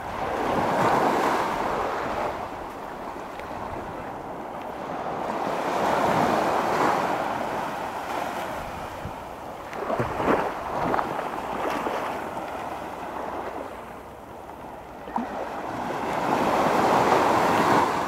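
Gentle surf: small waves breaking at the shoreline and washing up and back over the sand, the hiss swelling and fading about four times.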